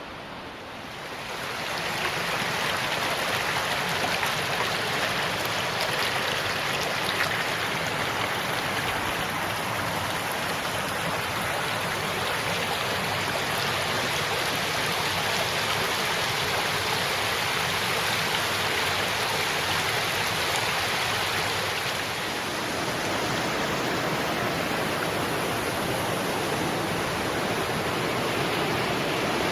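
Running water in a stream, a steady rushing that grows louder about a second in.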